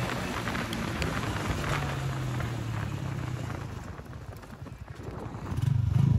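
Vehicle engines running: a low, steady engine note fades away, and near the end a louder engine comes close.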